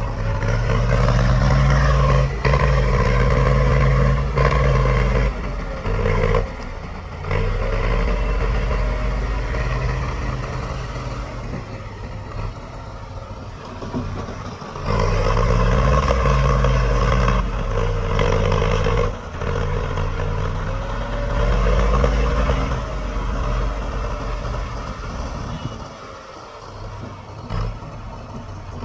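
Diesel engine of heavy earthmoving equipment running under load, its revs rising and falling several times, with some clatter.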